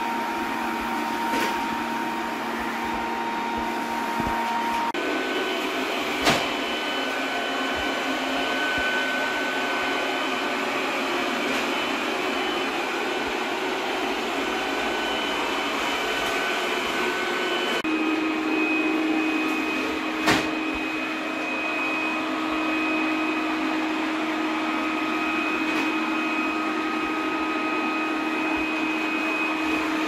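TP-Link Tapo RV30 Plus robot vacuum running, its suction fan giving a steady hum with a thin whine. The whine jumps to a new, higher pitch about five seconds in and again about eighteen seconds in, as the vacuum moves from Standard to Turbo to Max suction. Two short sharp knocks come about six seconds and twenty seconds in.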